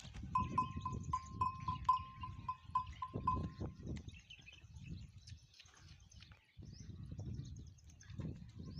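Flock of goats and sheep, with a quick run of about a dozen short high notes, roughly four a second, over the first three seconds, over a steady low rustle.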